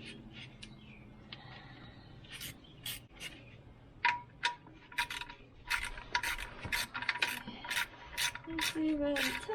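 Ratchet wrench clicking in short strokes as the oil drain plug is tightened down by hand. The clicks are sparse at first and come faster and more regularly from about two seconds in, with a faint steady tone joining about four seconds in.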